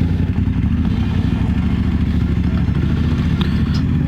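BMW F850GS motorcycle's parallel-twin engine running at a steady cruise, its pitch holding even.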